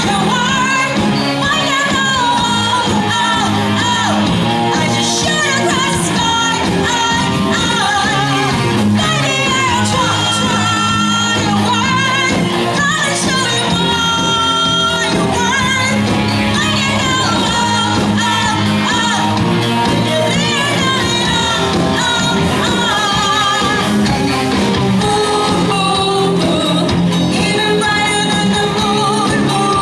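Live band playing a pop-rock song, with a lead vocal over drums, electric guitar and keyboard.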